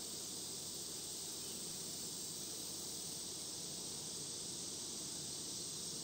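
Steady buzzing hum of a honeybee colony at an open hive, with a constant hiss over it.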